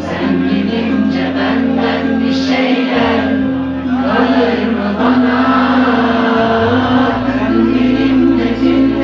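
Music: the intro of a song, with sustained bass notes and chords under a sung vocal line.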